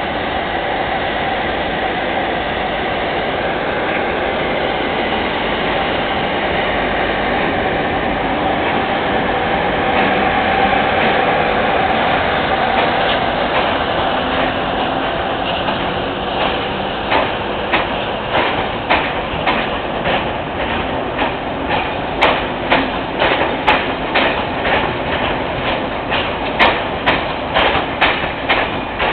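TCDD electric locomotive and passenger coaches passing: a steady rumbling hum with a held tone, then from about halfway the wheels clacking over rail joints in quick pairs, the clacks coming thicker and louder toward the end.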